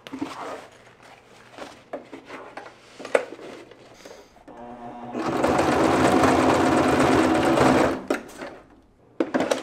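Bernette domestic sewing machine running at speed for about three seconds, stitching a webbing strap down onto bag fabric, then stopping abruptly. Before it come soft rustles and small clicks of the fabric being positioned, and a couple of sharp knocks near the end.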